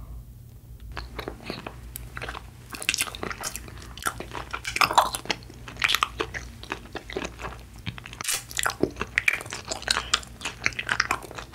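Close-up eating sounds of a person biting into and chewing a round Trolli galaxy jelly gummy: irregular runs of small clicks and smacks from the mouth, loudest about three, five and nine seconds in.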